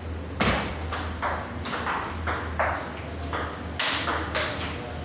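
Table tennis rally: the ball's sharp pocks off the paddles and the table, about two a second, over a steady low hum.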